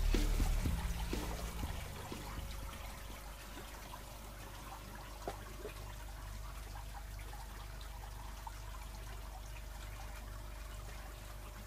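Steady trickle and splash of water circulating through an aquaponics system, the pumped return flow pouring into the fish tank, with a faint steady hum underneath. Background music fades out over the first two seconds.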